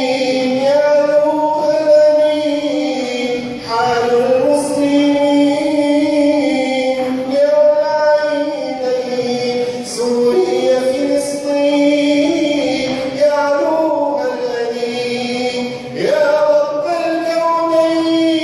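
Arabic nasheed: a male voice sings a slow, drawn-out melody over layered backing voices, with long held notes that glide between pitches.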